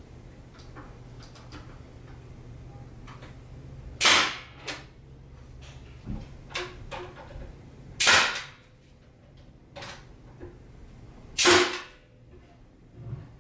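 Pneumatic finish nailer firing finishing nails into wooden trim: three sharp shots about four seconds apart, with a few faint clicks between them.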